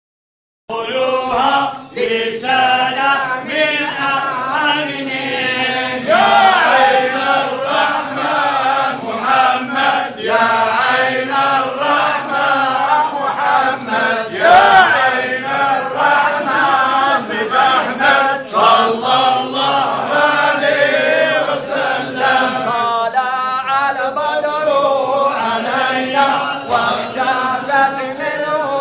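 A group of men chanting together in unison, a Sufi devotional chant. It begins about a second in and carries on without a break.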